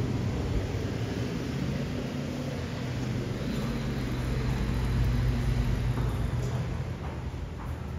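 City street traffic: a steady vehicle engine hum over road noise, easing off near the end.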